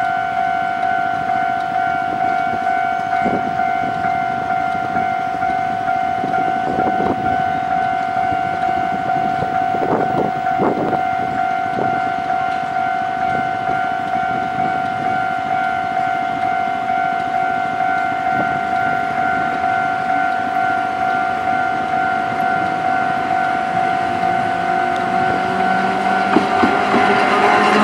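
Railway level-crossing warning bell ringing steadily with a rapidly repeating electronic ding. Near the end the rumble of an approaching electric locomotive and its train grows louder, with a rising whine.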